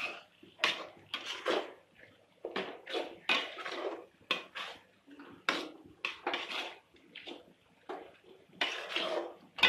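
Metal ladle scraping and stirring a thick onion-tomato masala around an aluminium pan, in short strokes about two a second, as chilli and coriander powder are mixed in. A sharp knock of ladle on pan near the end is the loudest sound.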